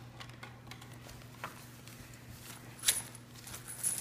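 Quiet room with a low steady hum and faint handling noise: a few soft clicks and rustles, the sharpest click about three seconds in.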